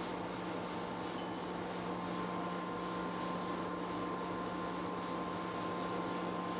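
OD (cylindrical) grinder running, its wheel grinding a shaft turning between centres under flood coolant: a steady hiss over a steady low hum. A thin high whistle joins about two seconds in.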